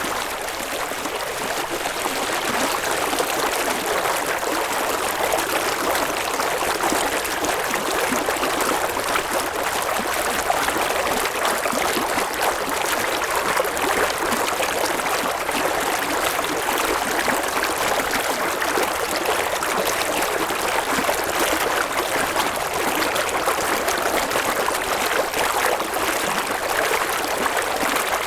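A river or stream of water flowing and splashing, heard as a steady, unbroken rush.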